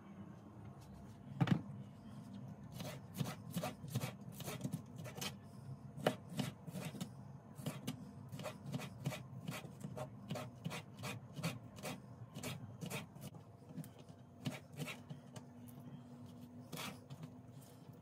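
Kitchen knife slicing a red bell pepper into strips on a plastic cutting board: irregular knocks of the blade on the board, several a second, with a couple of louder ones in the first half.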